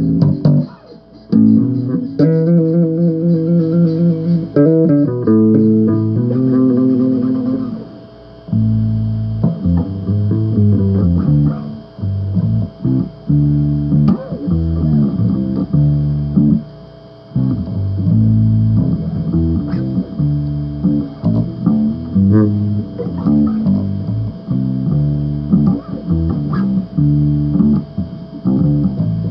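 Bass guitar played solo: plucked notes and riffs, some held chords early on, then a run of quick single notes with short gaps between phrases.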